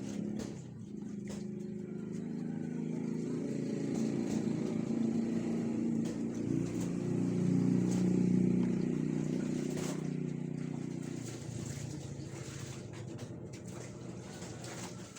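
A motor vehicle's engine passing by, growing louder to a peak about eight seconds in and then fading away.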